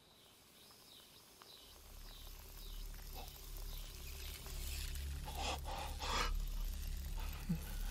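A low rumbling drone swells steadily louder, with faint high chirps in the first half and two sharp gasping breaths a little past the middle.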